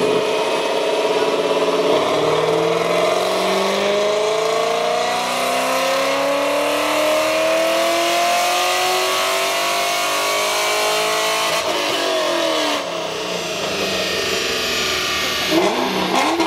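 2001 Corvette Z06's 5.7-litre LS6 V8 with a Corsa exhaust making a full-throttle pull on a chassis dyno: the engine note climbs steadily in pitch for about ten seconds, then the throttle closes and the revs fall away as the rollers coast down, with a brief sharp rev blip near the end.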